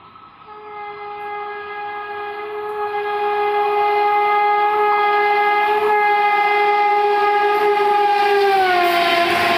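Horn of an Indian Railways WAP-7 electric locomotive sounded in one long continuous blast as the express approaches at speed, growing steadily louder. Near the end the horn's pitch drops as the locomotive passes.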